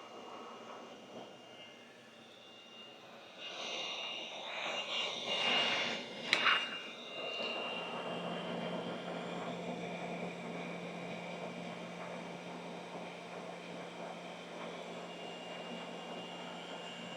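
Handling noise with a sharp click about six seconds in, then a small motor or fan starts and runs steadily with a low hum.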